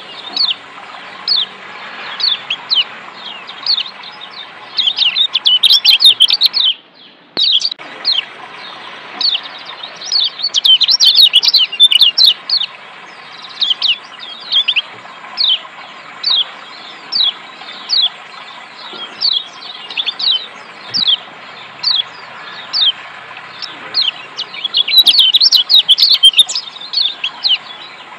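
Yellow white-eye (kecial kuning) calling: a string of short, high, downward-slurred chips with several quick chattering runs, over a steady hiss of running water. The sound drops out briefly about seven seconds in.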